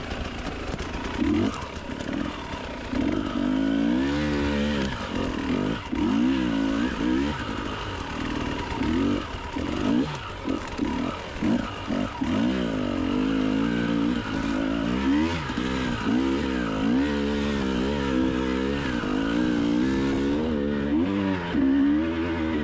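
Enduro motorcycle engine being ridden hard, its pitch rising and falling again and again as the throttle is opened and closed.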